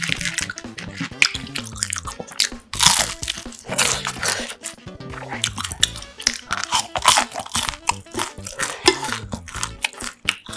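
Loud crunching and chewing of fried, battered sweet and sour pork pieces bitten close to the microphone, many crunches in a row, over soft background music.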